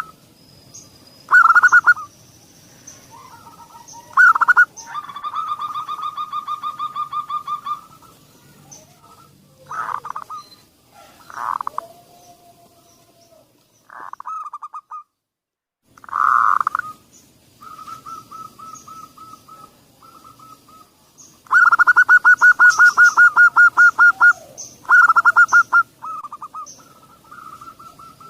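Zebra dove (perkutut) song, recorded as a lure to get other perkutut singing: repeated staccato cooing phrases, with two longer rapid trills, one a few seconds in and one past the middle, and a short break near the middle. Faint high chirps from another bird sound in the background.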